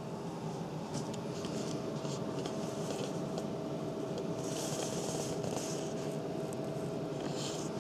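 Intermittent soft rustling, like fabric bedding shifting, over a steady low hum. There are short rustles early on and longer ones about halfway through and near the end.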